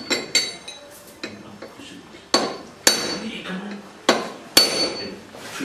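Hammer blows driving ARP interference-fit bolts into a Ford Pinto connecting rod: a few light taps at first, then two pairs of sharp metal-on-metal strikes, each pair about half a second apart, each with a short ringing clink.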